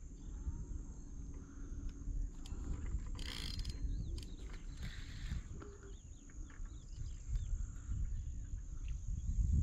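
Outdoor ambience on a riverbank: low wind rumble on the microphone, with small birds chirping in short calls throughout and a brief rustling hiss about three seconds in.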